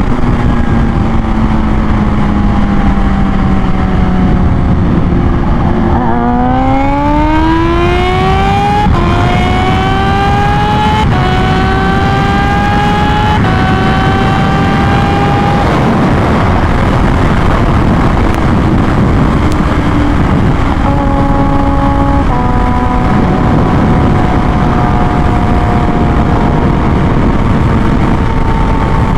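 Kawasaki Ninja H2's supercharged inline-four pulling hard at highway speed: the engine note rises steeply about six seconds in, drops back at three quick upshifts, then holds nearly steady. Heavy wind noise rushes over the engine throughout.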